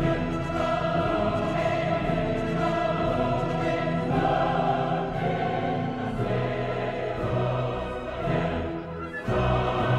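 Soundtrack music: a choir singing long held chords that change every few seconds, with a brief dip just before a new chord near the end.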